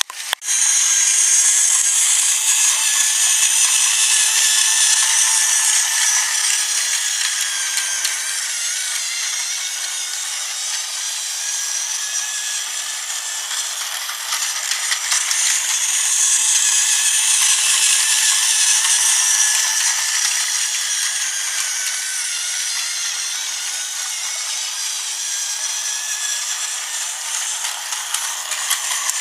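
Battery-powered Tomy Mighty Mac toy train running on plastic track: a steady whirring of its small motor and gears, with the wheels rubbing along the track. It grows louder and softer twice as it comes round the circuit.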